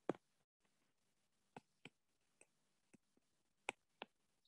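Scattered faint clicks of a stylus tip tapping on a tablet's glass screen while handwriting, about seven irregular taps, the loudest right at the start.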